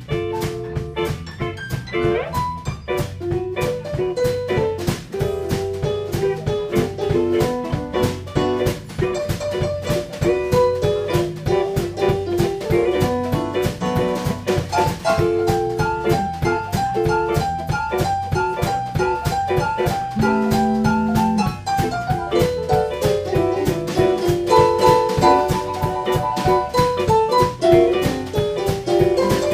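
Live band music: a Hammond XK-1 organ playing chords and runs over a drum kit's steady beat, with electric guitar.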